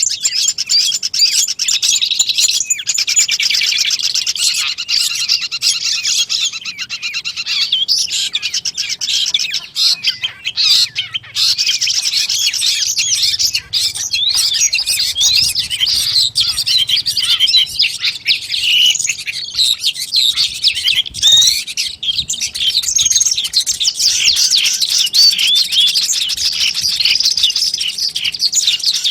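Long-tailed shrike (cendet) singing a rapid, continuous chattering song of high chirps and trills, thinning briefly about a third of the way in.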